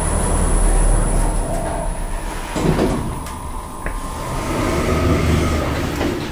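OTIS Gen2 machine-room-less traction elevator: low rumble of the car riding down, then its doors sliding open onto the landing in the second half.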